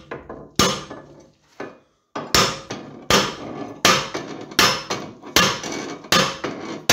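Hammer blows on a Skoda Octavia II front wheel hub, trying to knock the seized hub housing out of the steering knuckle. One blow, a pause, then a steady run of seven blows about three quarters of a second apart.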